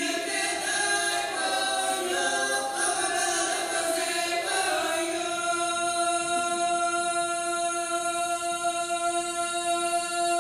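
A group of voices singing together in harmony, moving through several notes and then holding one long, steady chord from about halfway through.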